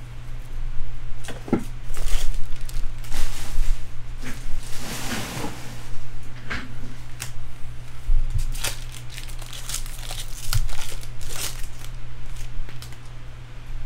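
Trading-card pack wrappers crinkling and crackling in a series of short irregular bursts, with a longer tearing rustle about five seconds in, as packs are handled and torn open.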